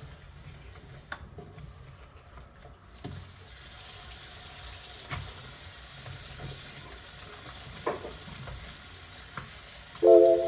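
Tap water running into a sink, starting about three seconds in, with a few light knocks. A loud burst of music cuts in right at the end.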